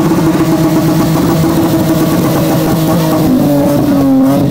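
Car engine held at high revs, its pitch sinking slowly and then dropping more steeply near the end.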